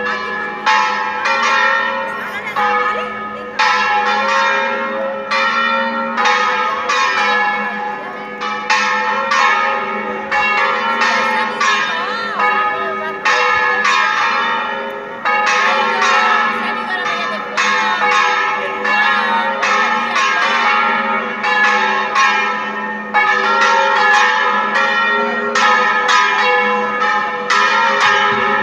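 Church tower bells swung full circle together in a Spanish 'volteo general'. The bells give a continuous run of overlapping strikes, roughly one or two a second, over a lingering ringing hum.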